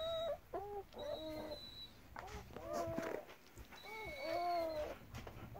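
German Shepherds whining: a string of short calls that rise and fall in pitch, with a longer drawn-out whine about four seconds in.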